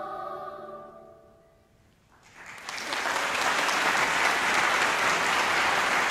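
A girls' choir's final sustained chord fades away over about a second and a half. After a brief hush, audience applause breaks out about two seconds in and carries on steadily.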